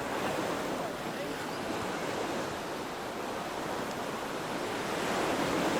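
Steady rushing noise of ocean surf mixed with wind on the microphone.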